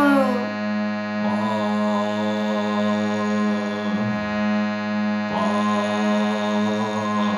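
NAGI harmonium playing: a steady reed drone, with held notes pressed on the keys twice, about a second in and again around the middle. A sung note gliding downward fades out right at the start.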